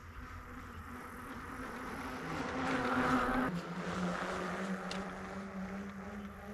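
A mountain bike rolling past on asphalt: its tyres hum, growing louder to a peak about three seconds in, dropping in pitch as it passes, then slowly fading away.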